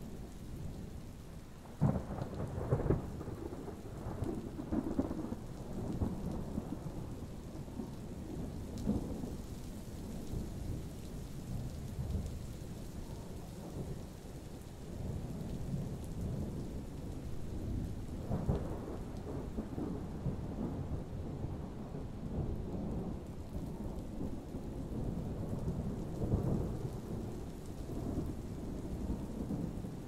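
Thunderstorm: thunder rumbling almost continuously, with sharp cracks about two seconds in and again a little past halfway, over steady rain.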